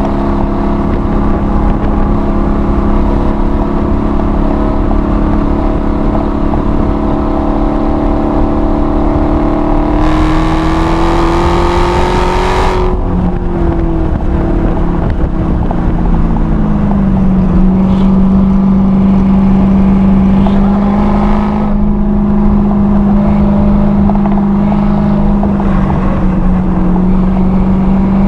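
Supercharged 6.2-litre V8 of a six-speed manual Dodge Challenger Hellcat running hard at track speed, heard from inside the car. The engine note climbs about ten seconds in, drops away about three seconds later and slides lower, then holds steady for a long stretch before starting to rise again near the end.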